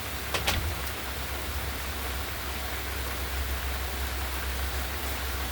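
Steady rain falling, an even hiss, with a couple of short sharp clicks about half a second in.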